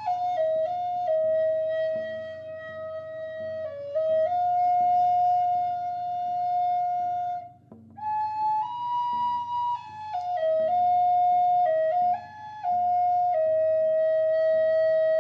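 Flute playing a slow melody of long held notes that step between a few pitches, with a brief pause for breath about halfway through.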